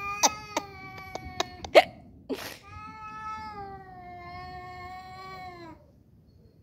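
Cats yowling in a fight standoff: a long wavering yowl broken by a few sharp clicks, then a short hiss about two seconds in, then a second long drawn-out yowl that dips in pitch as it ends, near six seconds in.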